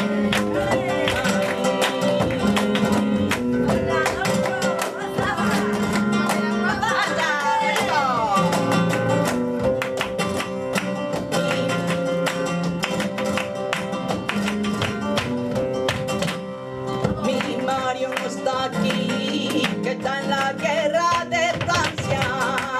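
Flamenco guitar playing tangos, with dense, sharp percussive strikes throughout. A voice comes in with short gliding phrases about a third of the way in and again near the end.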